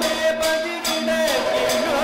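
Kathakali music: a male voice sings a padam in long, wavering held notes, over regular drum and cymbal strokes about every half second.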